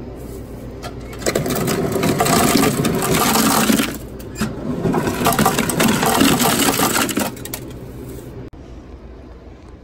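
Ice machine dispensing ice into a plastic-lined ice bucket: cubes clatter and crash down in two pours, the first about a second in and the second just after four seconds. The machine hums steadily under them and stops a little after eight seconds.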